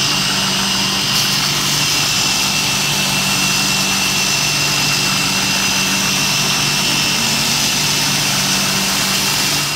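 Belt grinder running while a knife blade made from annealed farrier's-rasp steel is ground freehand against the belt to form the bevel. It is a steady grinding noise with a motor hum and a high whine.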